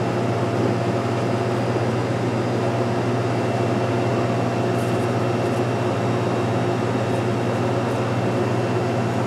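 Steady mechanical hum of restaurant kitchen equipment, even and unchanging, with a faint high whine over it.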